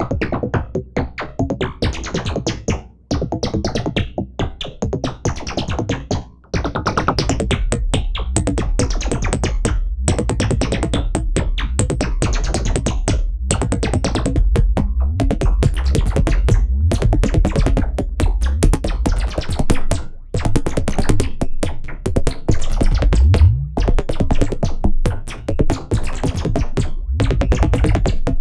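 Elektron Monomachine synthesizer jam: a pulsing FM bass rhythm with a high arpeggiated line on top, both with chorus. About six and a half seconds in the bass fills in and gets heavier, and a short upward pitch sweep comes in the low end past the two-thirds mark.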